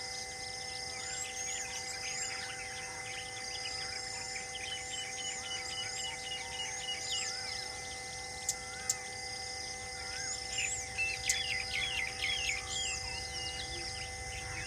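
Forest birds chirping and trilling over a steady insect drone. Two sharp clicks come a little past halfway, and the bird calls grow busier soon after.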